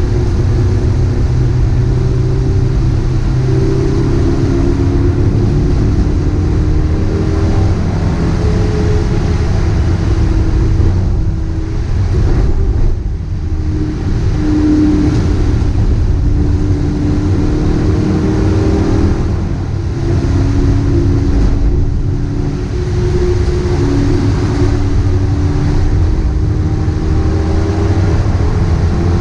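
Dacia Logan Cup race car's engine heard from inside the cabin, running hard under load, its pitch repeatedly climbing and stepping down through the gear changes. It eases off briefly twice, about a third and two thirds of the way through, over a steady rushing of tyre spray from the wet track.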